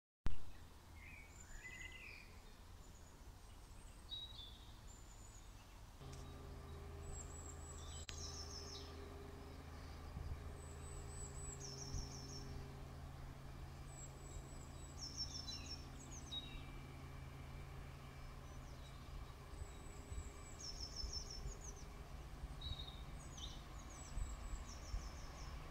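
A songbird singing a short high phrase, a few stuttering notes then a quick trill, repeated every few seconds. A faint steady low hum comes in about six seconds in.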